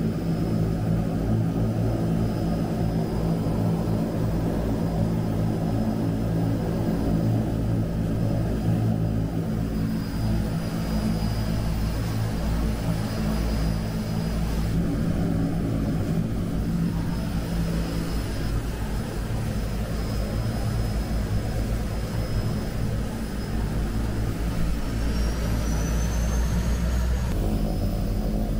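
The turboprop engines and propellers of a Twin Otter floatplane, heard from inside the cabin as it taxis on the water. A steady drone runs with a thin high whine over it, and the whine rises in pitch briefly near the end.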